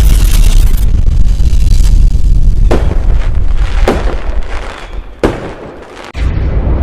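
Loud explosion-like booms: a deep rumble with three sharp cracks a little over a second apart, dying down before a fresh rumble starts near the end.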